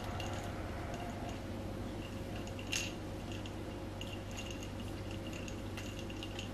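Light clinks of a silicone pastry brush against a small ceramic ramekin of ice water, with one sharper clink nearly three seconds in and a few faint ones later, over a steady low hum.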